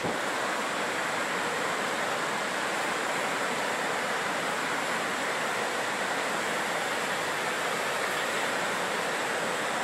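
A waterfall and creek rushing steadily.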